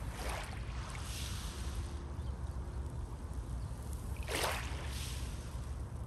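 Small sea waves breaking on a pebble shore, two surges about four seconds apart, over a steady low rumble of the sea.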